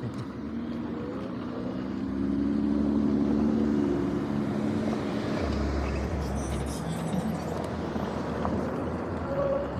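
Road traffic passing close by: cars and a pickup truck driving across in front, with engine and tyre noise, loudest about two to four seconds in.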